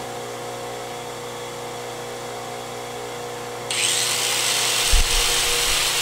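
Steady electrical hum of many appliances running off one power strip, the microwave among them. About four seconds in, a power tool starts with a loud, high, even whir, and there is a low thump a second later.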